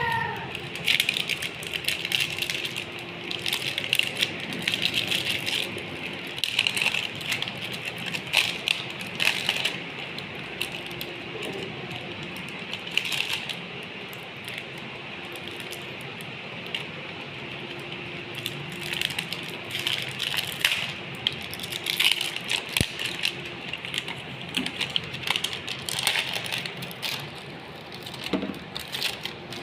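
Meat grinder working jelly candy, with a dense run of irregular clicks, crackles and rattles over a faint, on-and-off hum.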